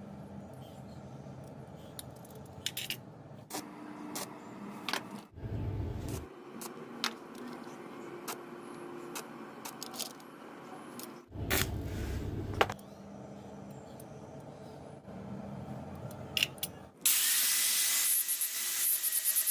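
Small metal parts being handled, with scattered clicks, taps and rattles. About 17 s in, a handheld power tool starts with a loud hiss and a steady high whine, and keeps running.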